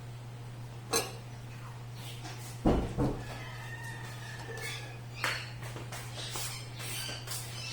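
Tableware clinking and knocking during a meal: a loud thump about two and a half seconds in, then several light clicks, over a steady low hum. A thin high whine sounds briefly around the middle.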